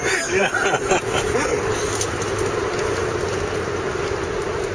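Steady road and engine noise heard inside a car's cabin while driving through a road tunnel, with a continuous low hum.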